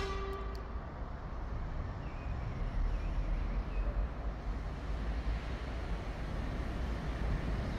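Steady traffic rumble and hiss from vehicles crossing the road bridge overhead, heaviest in the deep low end.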